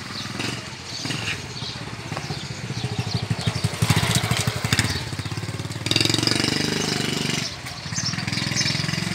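A small engine running, its rapid firing pulse growing louder over the first few seconds, then a louder, higher hum for a second or so about six seconds in.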